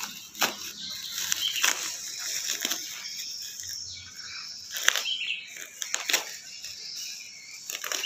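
Plastic and bubble-wrap packaging rustling and crinkling as it is cut open with scissors, with sharp snips and crackles at irregular moments.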